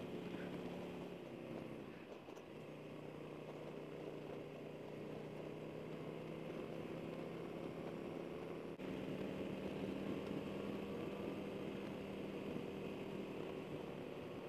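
Harley-Davidson Road King Special's Milwaukee-Eight V-twin running under way through Vance & Hines slip-on mufflers. Its note eases off about two seconds in, then steps up louder a little past the middle.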